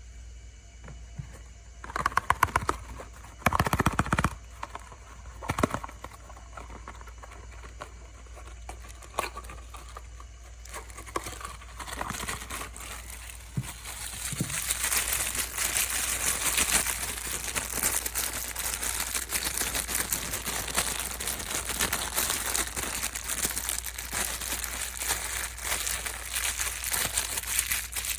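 Packaging crinkling and rustling as it is handled and opened. A few knocks and clicks come in the first seconds, and from about halfway the crinkling turns dense and continuous.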